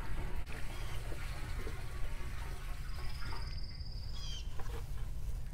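Rainwater poured from a bucket through a plastic funnel into a plastic 50-gallon drum, a steady splashing trickle that stops about three and a half seconds in as the bucket is lifted away. A bird gives a high thin call near the end.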